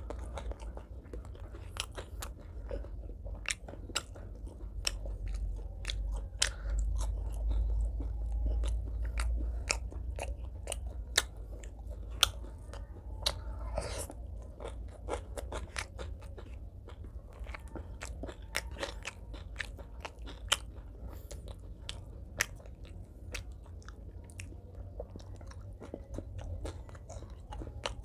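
Close-miked chewing of fried fish and rice, with many short, sharp crunches and mouth clicks coming irregularly throughout.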